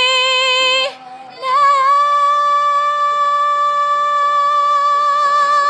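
A teenage girl singing unaccompanied in head voice: she holds the end of a sung note, takes a short breath about a second in, then sustains one long, high note with a light vibrato for about four seconds.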